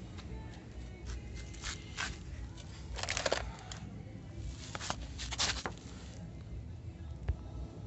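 Handling noise: a few short rustling, scraping bursts, the loudest about three seconds in and again around five seconds, then a single sharp click near the end.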